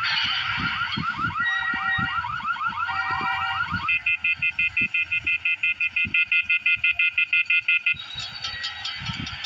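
Car alarm cycling through its tones: a fast, repeating rising warble, then rapid beeping about five times a second, then a different tone near the end, over irregular low thuds.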